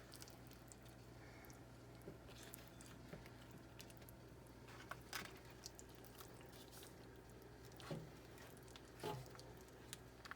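Faint, scattered soft scrapes and squishes of a spoon scooping chicken pot pie filling and crust into a bowl, a few seconds apart, over a low steady hum.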